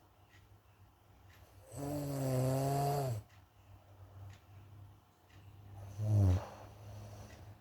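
A person snoring in their sleep: one long, pitched snore of about a second and a half around two seconds in, then a shorter, louder snore that drops in pitch about six seconds in.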